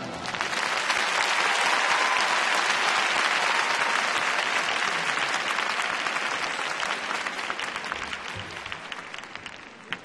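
Large arena crowd applauding, a dense patter of clapping that is loudest at first and gradually dies away.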